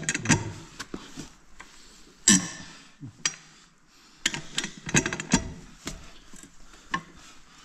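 Steel tyre lever clinking and scraping against a steel wheel rim as a small lugged tyre's bead is prised over it: irregular sharp metal clicks and knocks, loudest about two seconds in and bunched again a little past the middle.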